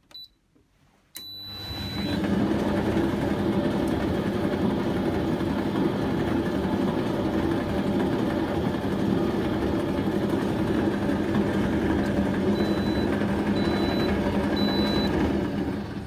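Candy Grand'O Vita tumble dryer switched on: a click and a short beep, then the motor and drum start and run steadily. The running sounds a bit juddery, which the owner puts down to worn bearings in the rollers the drum rim runs on. Three short high beeps near the end.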